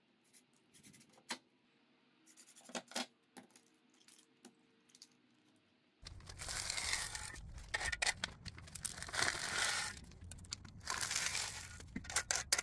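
A hand trowel scraping and scooping crushed gravel, in repeated bursts of crunching and rattling stones that begin about halfway through. Before that there are only a few faint clicks.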